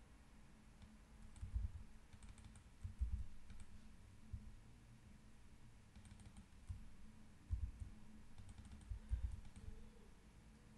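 Computer keyboard keys and mouse buttons clicking in several short clusters of quick taps, each with a soft low knock, as colour codes are pasted and typed into fields. A faint steady hum lies underneath.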